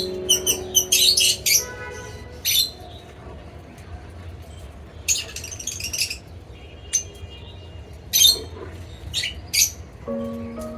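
Lovebirds in a colony giving shrill squawks and chirps in short, repeated bursts, several to a second at times. Background music notes play at the start and come back near the end.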